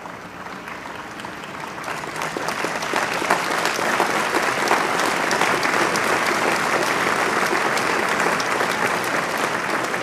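Audience applauding, the clapping swelling over the first few seconds and then holding steady.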